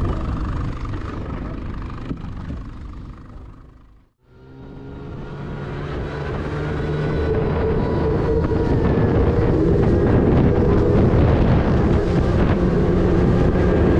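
Evinrude 40 outboard motor running with the boat under way, mixed with wind on the microphone and rushing water. The sound fades away to silence about four seconds in, then fades back in and grows louder before settling at a steady level.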